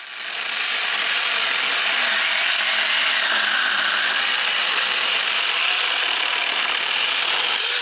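Alloyman 6-inch 20-volt cordless mini chainsaw cutting steadily through a thick hardwood log on a fresh battery. The electric motor and chain come up to speed just after the start and run at an even level without cutting out.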